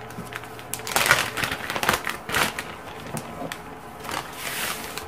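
Clear plastic zip-top freezer bag crinkling and rustling as it is pulled open and handled. Near the end, white sugar pours with a soft hiss from a glass bowl into the bag.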